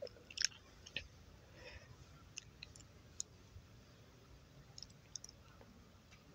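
Quiet background with a few scattered, faint, sharp clicks and ticks; no bells are ringing.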